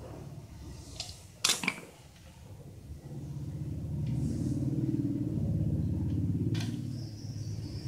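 A few sharp metal clanks of a hand tool on the cast-iron engine casing, the loudest about a second and a half in. From about three seconds on, a steady low engine rumble from an unseen motor vehicle rises and holds.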